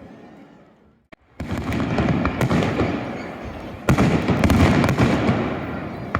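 Aerial fireworks shells bursting. A sudden loud burst about a second and a half in is followed by dense crackling, and a second, louder burst near four seconds in crackles on and fades out.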